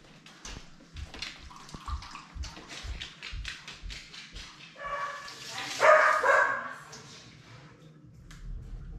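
A dog on a wooden floor: light clicking steps, then about five seconds in a drawn-out pitched whine from the dog lasting about a second and a half.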